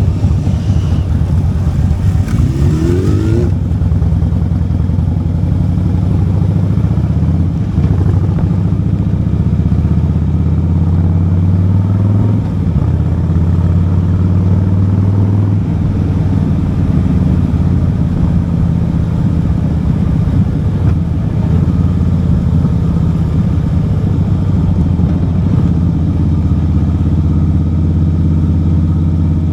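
Harley-Davidson V-twin motorcycle engine running on the road, rising in pitch as it speeds up about two to three seconds in, then holding a steady drone at cruising speed.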